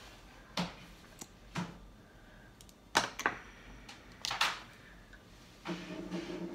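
A few sharp clicks and taps of makeup packaging being handled while a glitter liner is opened and its wand used, a compact held up beside the eye; the loudest click comes about three seconds in. A short hum from a voice near the end.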